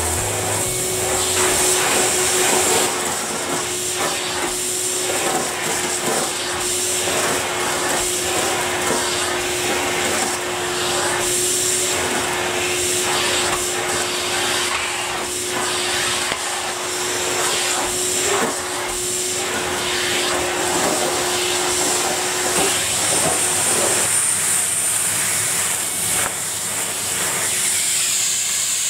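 Numatic Henry vacuum cleaner running steadily while sucking dry autumn leaves off a carpet: a steady hiss and hum broken by many short irregular crackles as the leaves are pulled in.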